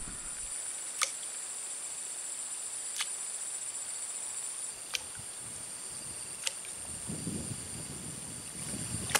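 Steady high-pitched insect drone from the swamp vegetation, broken by four sharp ticks spaced a second and a half to two seconds apart.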